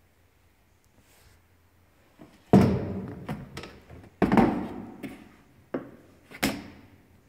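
Large polypropylene storage box with a flap lid being moved and handled: a loud plastic thunk about two and a half seconds in, another under two seconds later, then two lighter knocks and a few small clicks.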